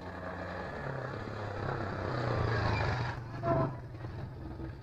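Small motorcycle engine passing by, growing louder until about three seconds in and then fading, with a brief louder sound about three and a half seconds in.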